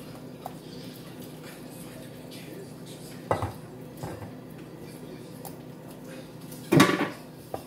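Silicone spatula stirring and scraping a thick vegetable batter in a glass bowl, knocking against the bowl a few times, the loudest knock about seven seconds in. A steady low hum runs underneath.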